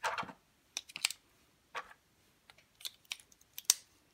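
Battery cells being pushed into a plastic Apple Newton MessagePad battery pack: a string of short, sharp plastic clicks and clatters, the loudest click a little before the end.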